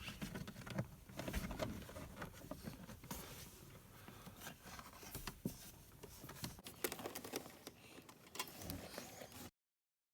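Irregular faint clicks, taps and rustles of wiring being handled and moved away from the pedals under a truck's dashboard. The sound cuts off abruptly near the end.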